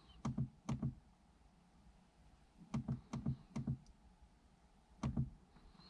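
Small push buttons on a FOOKOO rear-view camera monitor clicking as they are pressed to step through its settings menu: three quick clicks at the start, a run of four or five about three seconds in, and one or two more about five seconds in.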